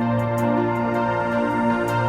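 Background music: a synthesizer-led electronic track with sustained chords and a light, regular beat.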